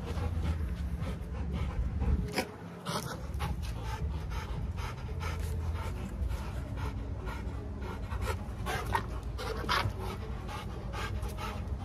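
Rottweilers panting hard after rough play, a quick rhythmic run of breaths.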